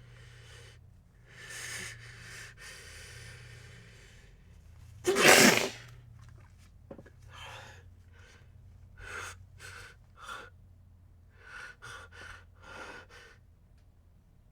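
A person sneezing: a long drawn-in breath over a few seconds, then one loud sneeze about five seconds in, followed by a string of short, quick breaths.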